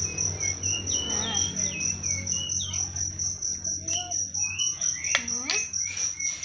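A cricket chirping steadily in rapid, even, high-pitched pulses, with scattered short bird-like chirps and a low hum underneath. A couple of sharp clicks come about five seconds in.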